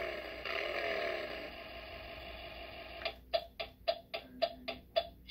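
Electronic sound effects from a Fisher-Price Harley-Davidson toy trike's small speaker: a steady buzzing tone for about three seconds, then the turn-signal ticking at about four ticks a second.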